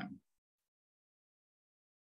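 Near silence: a man's voice cuts off in the first instant, then complete digital silence.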